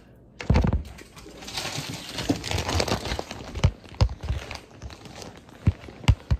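Rustling and crinkling of packaging being handled, with a string of sharp knocks and taps as things are moved about.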